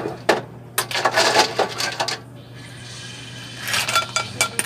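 Metal ladle clinking and scraping against a cooking pot as snails and coconut-milk sauce are scooped out and poured into a ceramic bowl, in two bursts: one about a second in and one near the end.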